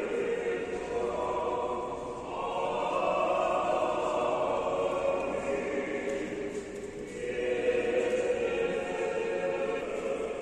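Choir singing during a church service: long, held chords in phrases, with short breaks about two seconds in and about seven seconds in.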